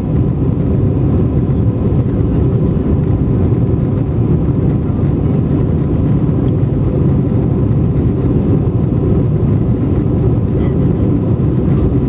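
Steady cabin noise of an Airbus A320-232 in flight, heard from a window seat over the wing: its IAE V2500 turbofans and the rushing airflow make a low, even drone, with a faint steady tone above it.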